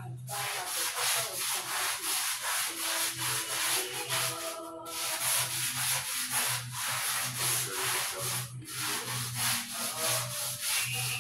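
Small stiff-bristled hand brush scrubbing dirty grout lines on a tile floor in quick back-and-forth strokes, about four or five a second, with brief pauses about four and a half and eight and a half seconds in.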